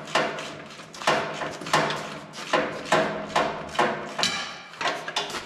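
Hammer blows on steel, about ten irregular strikes roughly two a second, each ringing briefly.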